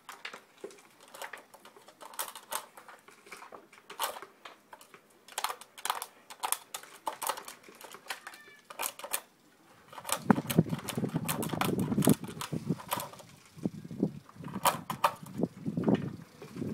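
Irregular plastic clicks and clacks as a dog noses and paws at a paw-shaped plastic puzzle feeder, working its covers to reach the food. From about ten seconds in, a louder, denser rustling snuffle joins the clicks as the dog works with its nose in the feeder.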